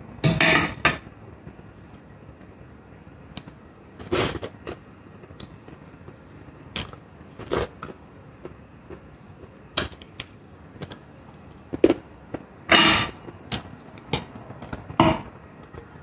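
A metal fork scraping and clinking on a ceramic plate, with chewing between: a dozen or so short, separate sounds, the longest about three-quarters of the way through.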